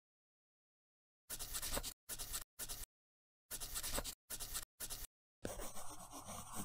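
Scratchy strokes of writing on paper in short bursts with dead silence between them, starting about a second in. There are three quick strokes, a pause, three more, then a longer stroke near the end.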